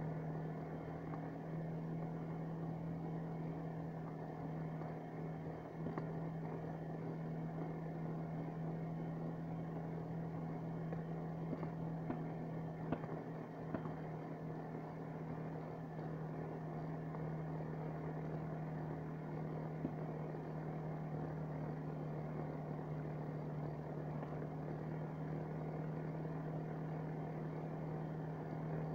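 Engine of a small snow vehicle running at a steady cruising speed: a constant, even drone with rushing noise underneath, unchanging throughout.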